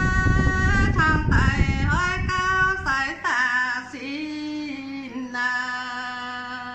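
A woman singing a Dao folk song in long held, wavering notes that slide in pitch between short phrases. A low rumbling noise runs under the singing and stops about three seconds in.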